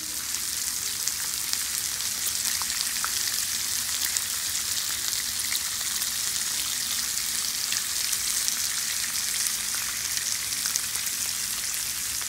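Thick-cut bacon strips sizzling on the hot steel plate of a Blackstone flat-top griddle: a steady, dense hiss of frying fat with many small crackles.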